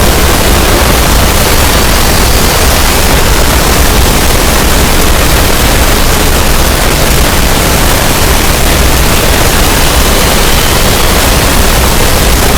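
Very loud, steady noise spread evenly across all pitches, with a heavy low rumble underneath and no change in level.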